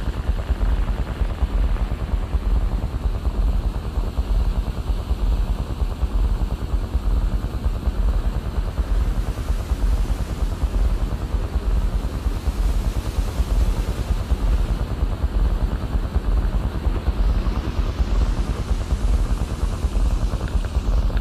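Experimental electronic music: a dense, rapidly fluttering low rumble under a hiss that swells up in the high end around the middle and again near the end.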